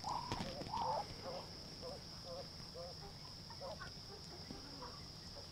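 Poultry calling softly: a few short clucking calls in the first second, then fainter, scattered calls over the next few seconds, with a steady high-pitched whine underneath.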